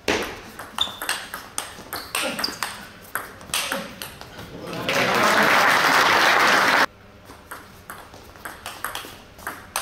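Table tennis rally: the ball clicking sharply off bats and table in quick, irregular strikes. About five seconds in, spectators applaud loudly for about two seconds until it cuts off abruptly, and then the clicks of another rally follow.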